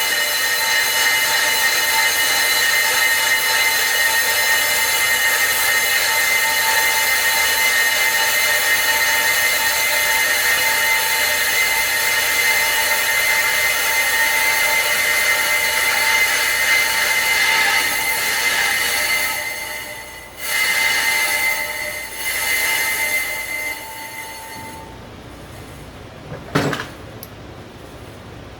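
BMW 530i brake disc rotor squealing: a loud, steady, high-pitched metallic ring with several pitches sounding together. It breaks off and fades after about nineteen seconds, and a single knock comes near the end.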